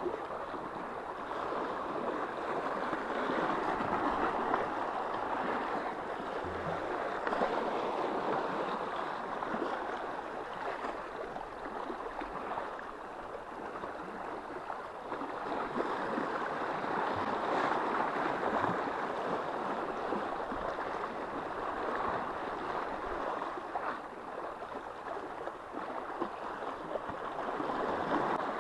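Sea waves washing against the shore: an even rushing that swells and eases every few seconds.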